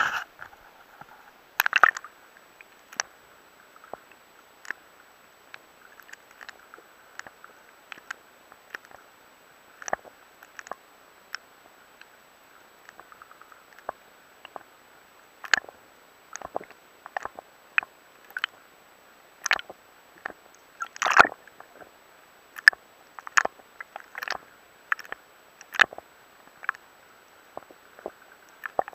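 Water moving against a submerged camera's waterproof housing: irregular sharp clicks and knocks, a few a second and loudest about 21 seconds in, over a faint steady hiss.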